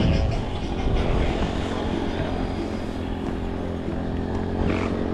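A motor running steadily, with an even, pitched hum.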